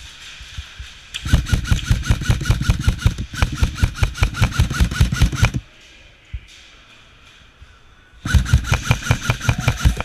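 Airsoft gun firing full-auto in two long bursts of rapid, evenly spaced shots, about eight a second: the first lasts about four seconds, the second starts near the end.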